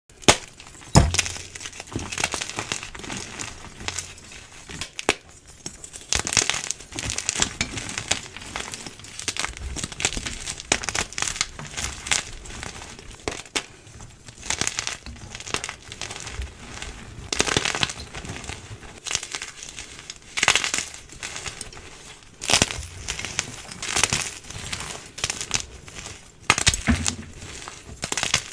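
Blocks of dyed gym chalk being crushed: a steady run of crisp crunches and crumbling, with some crunches much louder than the rest.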